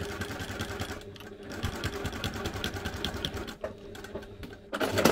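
Domestic sewing machine with a walking foot top-stitching binding onto vinyl, the needle running in fast, even strokes. It dips briefly about a second in and goes quieter later, with a louder clatter near the end.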